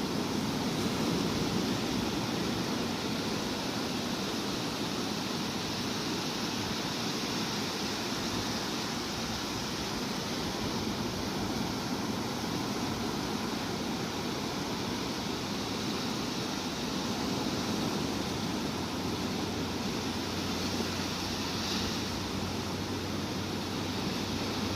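Sea surf: a steady, even rushing wash of waves with no distinct breaks. A low steady hum comes in near the end.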